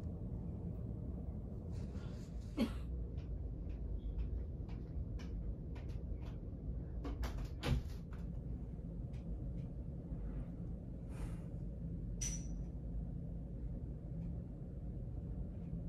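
Hospital exam-room ambience: a steady low hum with scattered small knocks and clicks, the loudest about two and a half and seven and a half seconds in, and a short high tone about twelve seconds in.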